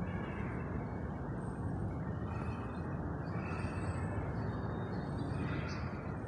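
A steady low rumbling noise of unknown origin, with a few faint higher sounds coming and going.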